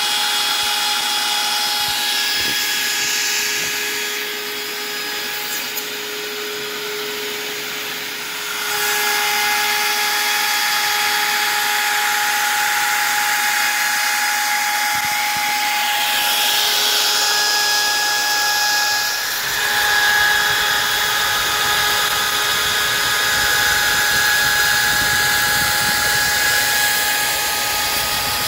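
Makita RT0701C compact router spinning a 5/8-inch two-flute carbide bit at about 21,000 RPM on a CNC machine, flattening a maple slab: a steady high whine with the noise of the bit cutting wood. It gets louder about eight seconds in and again near twenty seconds.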